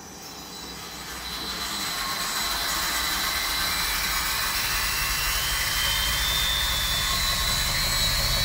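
Electric-motor-driven Roots-type rotary lobe air blower, the main air blower of a polypropylene filter cartridge machine, switched on. Its rushing hum with a high steady whine builds over the first few seconds and then runs steadily.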